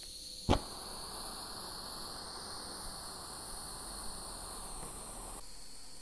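Butane torch lighter: one sharp click of its ignition as it is lit, then the jet flame hissing steadily for about five seconds before it cuts off.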